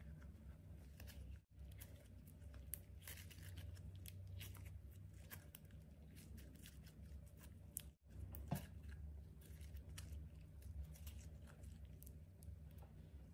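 Clay slime being worked by hand, giving many small sticky clicks and crackles over a low steady hum, with brief breaks where the sound is cut.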